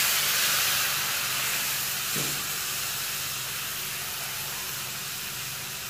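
Water poured into a pan of hot ghee and roasted semolina vermicelli, hissing and sizzling loudly, the hiss strongest at first and slowly dying down.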